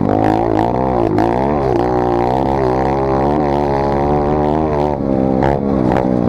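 Dirt bike engine running, its pitch rising and falling with the throttle.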